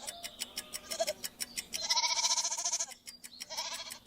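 Goat bleating: a long, wavering bleat about two seconds in, then a shorter bleat near the end.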